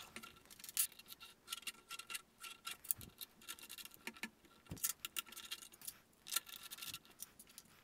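Faint, irregular small clicks and light metallic clinks of screws and hardware being handled and driven as a cover plate is screwed onto the actuator.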